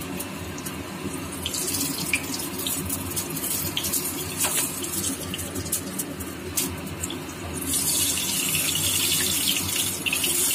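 Batter-coated pumpkin flower fritters deep-frying in hot mustard oil: a steady sizzle dotted with crackling pops. It grows louder and denser about eight seconds in. A steady low hum runs underneath.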